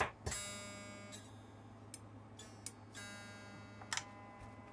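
Metal tool tapping an electric guitar's humbucker pickup during a wiring check: a series of sharp metallic taps, several followed by a pitched ringing that fades over about a second.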